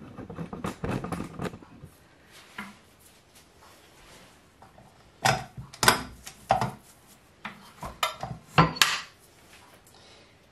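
Clatter and sharp knocks of a stand mixer's stainless steel bowl and flat beater attachment being handled and fitted onto the mixer, in two bursts: a jumble of knocks at the start and several loud clicks about halfway through. The mixer motor is not running.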